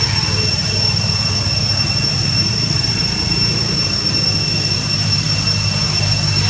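Steady, high-pitched drone of insects held on one pitch, over a constant low rumble.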